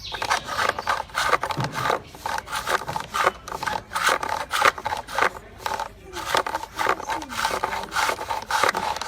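Wood being turned on a foot-powered bow lathe: a hand-held tool scrapes the spinning workpiece in quick, repeated strokes as it turns back and forth.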